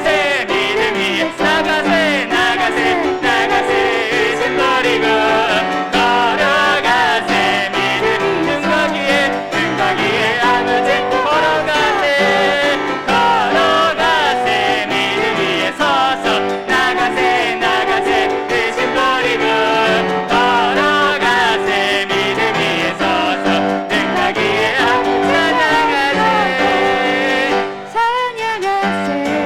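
Church praise team singing a worship song with piano accompaniment, the voices held and wavering over steady chords, with a short break near the end.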